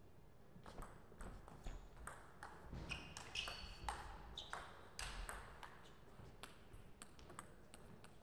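Table tennis rally: the ball clicks off bats and table in quick succession, with the strokes bunched between about one and five seconds in, then a few scattered ticks as the point ends.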